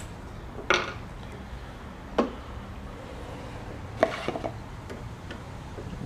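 Sharp metallic clicks from small steel parts and a screwdriver being handled against a Singer 503A sewing machine's head: three separate clinks, the last followed by a short rattle.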